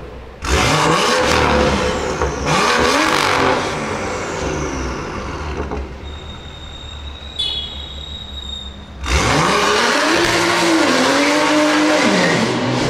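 Tuned BMW M2's turbocharged straight-six with an aftermarket exhaust, revved hard in two loud runs, its note rising and falling. Between the runs it is quieter, with a steady high tone.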